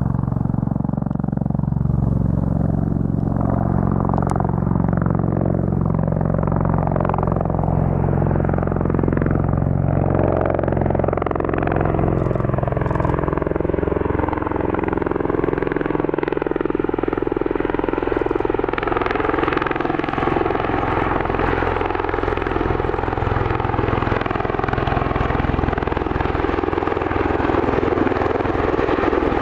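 Bell Boeing V-22 Osprey tiltrotor with its Rolls-Royce T406 turboshaft engines and proprotors running steadily. The low hum fades about halfway through, leaving a higher rushing sound.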